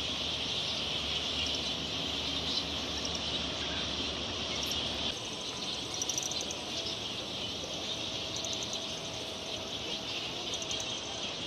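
Steady high-pitched insect chorus, with short rapid trills breaking in over it a few times in the second half.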